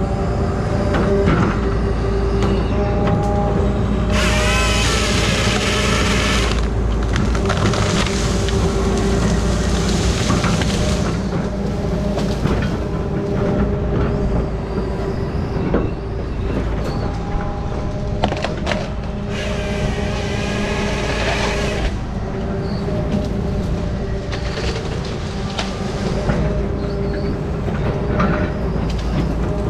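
Grapple saw machine's engine running steadily, with two loud bursts of a few seconds each, about four and about twenty seconds in, as the saw head cuts through wood.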